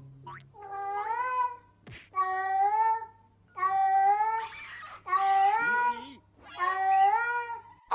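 Domestic cat meowing five times, about once every second and a half; each meow is just under a second long and rises in pitch at its start.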